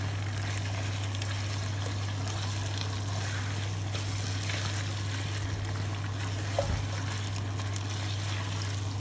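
Chicken pieces sizzling steadily in hot oil while being stirred, as they are browned (bhuna) with ginger-garlic paste and whole spices. A steady low hum runs underneath, and there is one light knock about two-thirds of the way through.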